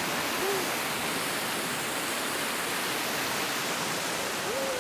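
Loud, steady rush of a rocky mountain stream tumbling over small rapids.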